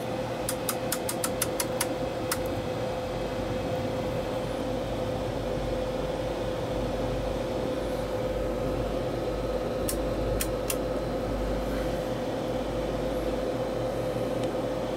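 Steady electrical hum and a constant whine from running test-bench electronics. A quick run of about eight clicks near the start and three more about ten seconds in come from a detented control knob on the test gear being turned.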